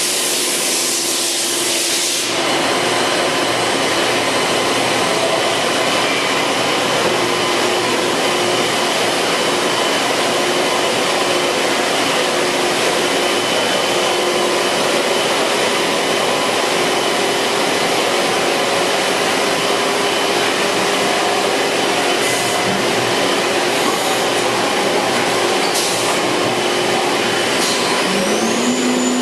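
Haas VF-2TR CNC vertical machining center running a job: a steady rush of coolant pumps and coolant flow over a constant machine hum, louder in the first two seconds. Near the end a whine rises in pitch and then holds, as the spindle speeds up.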